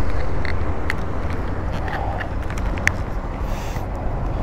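Low, steady motor-vehicle engine rumble with street noise, and a few light clicks.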